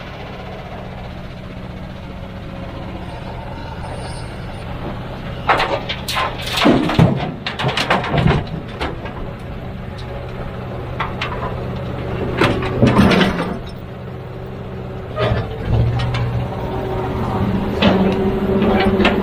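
Heavy diesel earthmoving machinery running steadily, with several bouts of loud clattering and banging strikes over the engine.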